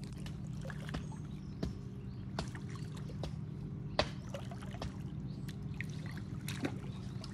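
A steady low hum with scattered sharp clicks over light water trickling at the edge of a pond; the loudest click comes about four seconds in.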